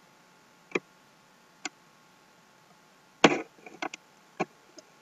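Scattered sharp clicks of a computer mouse and keyboard used at a desk: single clicks, then a louder quick cluster of clicks about three seconds in, and two more near the end.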